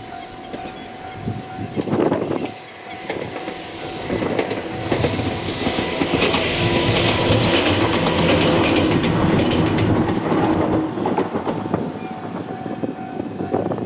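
Ohmi Railway 800-series two-car electric train approaching, passing close by and fading away. It is loudest in the middle, with wheels clattering on the track and a traction-motor hum. Wind buffets the microphone.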